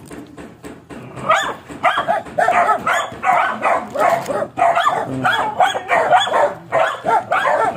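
Dog barking repeatedly, about three barks a second, starting about a second in.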